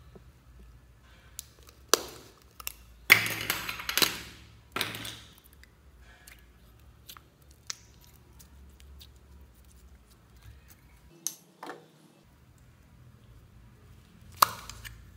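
A small round plastic slime tub being handled and opened: a rasping, scraping stretch from its lid about three seconds in, then scattered light clicks and taps of plastic.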